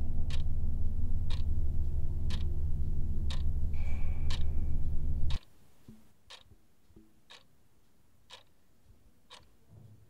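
Wall clock ticking once a second. A loud, low, steady rumble underneath cuts off suddenly about five seconds in, leaving the ticks on their own, faint.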